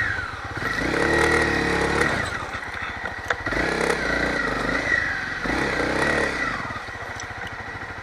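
Motorcycle engine running at low revs, with brief rises and falls in revs about a second in, during slow manoeuvring of the bike.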